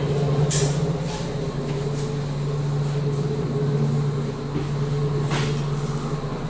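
Interior running noise of an ED4M electric train in motion: a steady low hum over a noise bed, with two sharp clicks, one about half a second in and one near the end.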